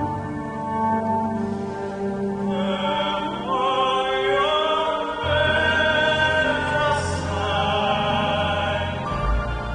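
Classical program music with operatic singing. A wavering voice line comes in about three seconds in, and a low bass enters at about five seconds.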